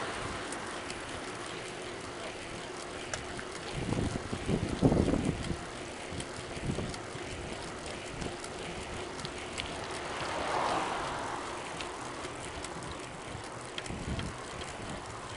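Bicycle riding noise on an asphalt road: a steady rumble of tyres and the bike, with small ticks and rattles. Wind buffets the microphone in gusts, strongest about four to five seconds in.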